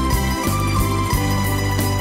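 Instrumental music with sustained bass notes and a steady beat.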